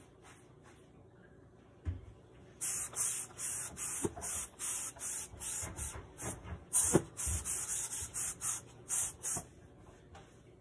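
Cleaning a stainless steel sink with cleanser: a run of quick scratchy strokes, a couple or so a second, for about seven seconds, with a few dull knocks among them.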